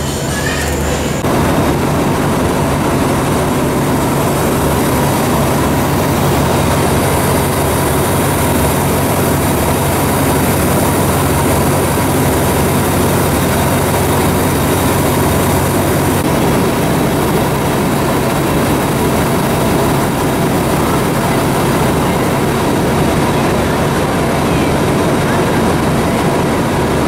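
Diesel-electric locomotive engine idling at the platform, a loud, steady running hum with no change in speed.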